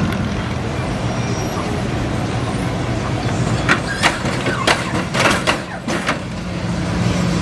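Engines of slow-cruising lowrider sedans running at low speed, a steady low rumble. A quick run of sharp clicks or cracks breaks in about halfway through.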